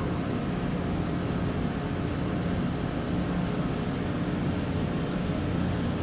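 System air conditioner outdoor unit running: a steady low hum with a constant drone and no change.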